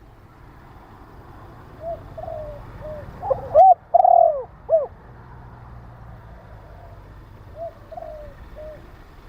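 Spotted dove cooing. A few soft coos are followed by a loud phrase of arched, rising-and-falling notes about halfway through, then more soft coos near the end.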